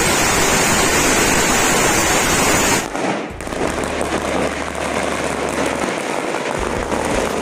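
A long string of firecrackers going off in a rapid, continuous crackle of bangs. About three seconds in it cuts abruptly to a quieter, more distant crackle of another string.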